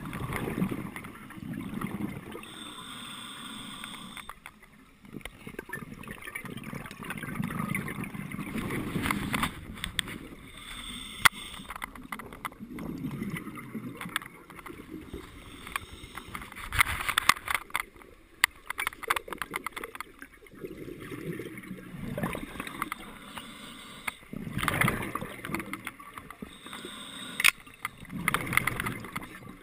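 Scuba regulator breathing underwater: a hiss on each inhale and a gurgling rush of exhaled bubbles, repeating every few seconds, with a few sharp clicks.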